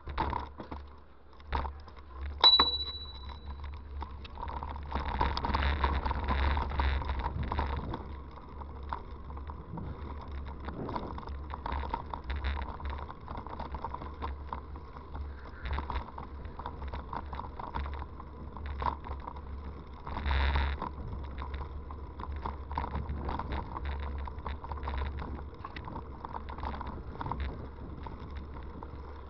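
Rumble and rattle of a bicycle ride picked up by a bike-mounted camera's microphone, with scattered clicks and knocks. About two and a half seconds in, a single clear ring fades out over about a second.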